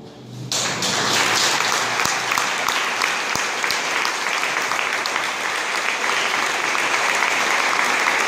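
Audience applauding, breaking out about half a second in and going on steadily.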